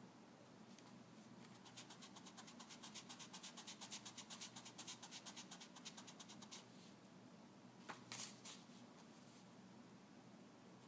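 Faint graphite pencil scratching on paper in quick, even shading strokes, several a second, for a few seconds. A couple of louder scrapes follow about eight seconds in.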